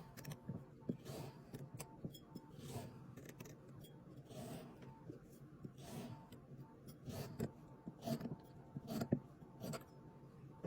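Kinetic sand being worked by hand or tool: faint, irregular soft scraping and crumbling with many small clicks.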